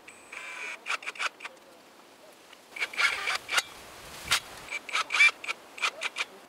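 Irregular sharp metallic clicks and knocks with some scraping, as a steel mounting bracket is handled and fitted against a palm trunk.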